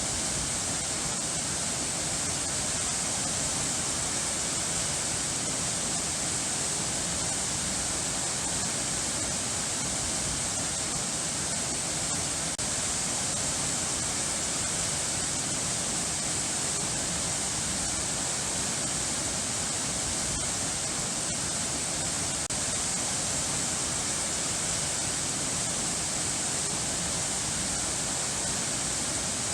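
Running water rushing steadily, like a waterfall or cascade: an even, unbroken hiss, brightest in the high range.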